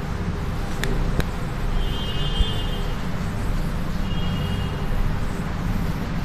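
A chalkboard being wiped clean with a duster, under a steady low background rumble. There are two sharp clicks about a second in.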